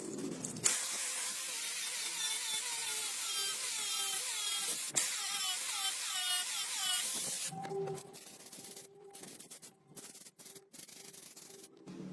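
Hand sanding: rapid back-and-forth abrasive strokes, about two a second, that stop a little over halfway in, leaving a faint steady hum.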